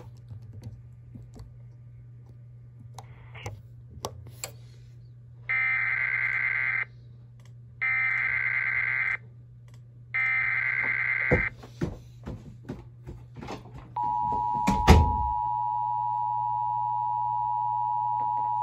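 Emergency Alert System SAME header: three short bursts of warbling data tones about a second apart, followed by the steady two-tone EAS attention signal that runs to the end. A low steady hum and scattered clicks lie underneath, with a loud pop just after the attention tone starts.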